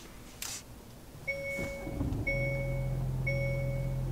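Hyundai Santa Cruz being started with its push button: a two-tone warning chime beeps about once a second, and from about two seconds in the steady low hum of its 2.5-litre turbocharged four-cylinder idles beneath it.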